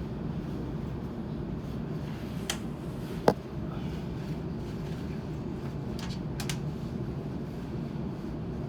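Sydney Trains Waratah (A-set) electric train running between stations, heard from inside the carriage: a steady low rumble with a few sharp clicks, the loudest about three seconds in and two more close together about six seconds in.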